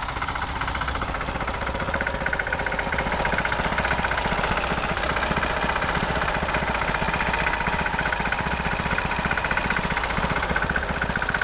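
Tractor engine running steadily with a fast, even pulse, driving a belt-driven agricultural sprayer pump.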